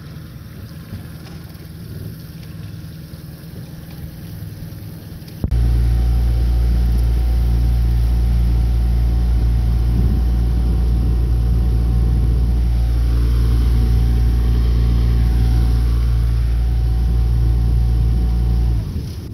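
Faint wind and water noise, then about five seconds in a jon boat's outboard motor comes in abruptly, running loud and steady under way, before dropping away just before the end.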